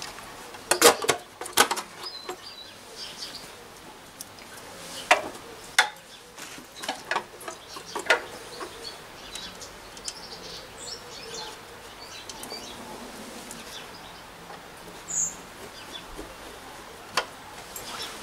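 Scattered clicks and knocks of a screwdriver and hands working on a belt sander's metal and plastic guard, loudest near the start, with a faint steady background and one short high chirp near the end.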